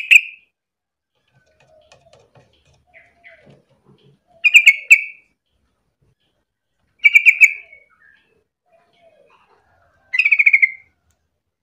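Yellow-vented bulbul (trucukan) singing: four short, bubbling, stuttering phrases, one about every three seconds, with faint low falling notes between them.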